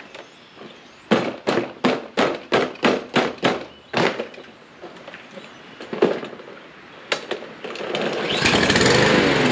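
A quick run of about nine sharp knocks, then two more single knocks; near the end the mower's Briggs & Stratton engine is pull-started and catches, its running rising in speed.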